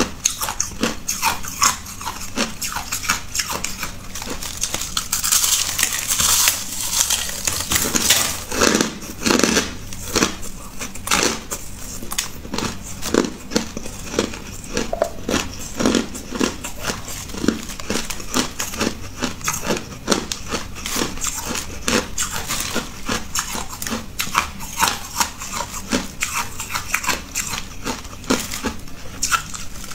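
Crushed white ice crunching as it is bitten, chewed and squeezed by hand: a dense stream of sharp cracks and crackles, falling into a rhythmic run of crunches in the middle.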